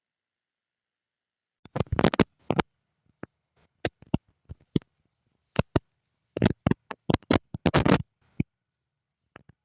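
Short bursts of scratchy rustling and sharp snapping crackles in irregular clusters, about two seconds in, around the middle and again near the end, as when weeds and grass are cut or pulled by hand.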